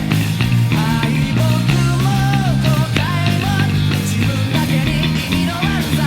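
Electric bass playing along to a fast rock band recording, with drums, guitars and a sung vocal line over strong, sustained low bass notes.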